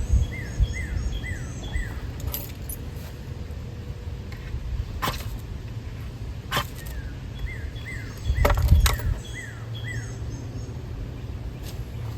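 A songbird sings a short phrase of about four quick, falling whistled notes, twice. Between the phrases come a handful of brief, sharp scrapes or clicks. A low rumble about eight and a half seconds in is the loudest moment.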